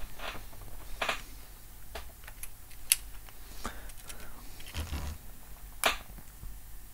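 Irregular small clicks and taps of handling a smartphone and its parts on a repair bench while a test display is connected to the phone; the sharpest clicks come about three and six seconds in.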